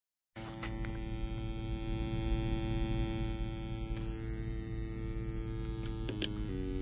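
Eurorack modular synthesizer holding one steady droning tone over a low hum; about six seconds in there are a couple of clicks and the pitch steps to a new note as the sequence starts.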